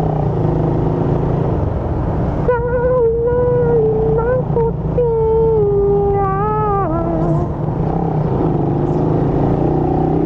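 Motorcycle engine running in slow traffic, heard through a microphone inside the rider's helmet, with a steady low hum and wind noise. In the middle a wavering high-pitched tone rises over it for a few seconds. Near the end the engine's pitch rises as it picks up revs.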